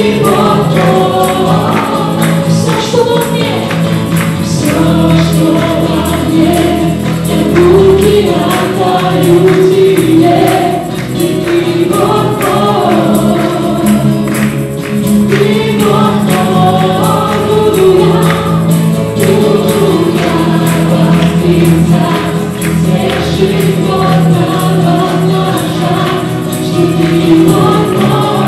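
Live worship band playing a song: several voices singing together over acoustic and electric guitars and keyboard, with a steady beat.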